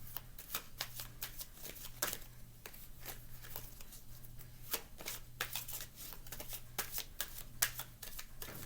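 Tarot cards being shuffled by hand: a run of quick, irregular card snaps and riffles.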